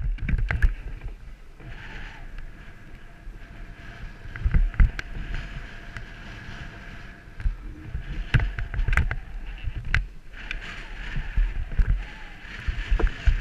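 Yamaha TW200's single-cylinder engine running as the bike rides over a pebble beach, with wind buffeting the camera microphone and scattered knocks as the tyres jolt over stones.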